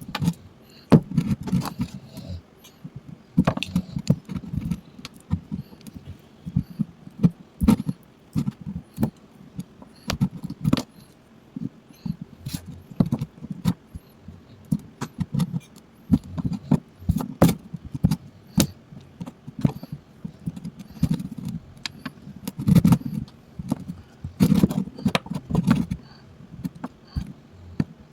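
A close, irregular run of clicks, knocks and scrapes, several a second, as of hands working at a small hard object.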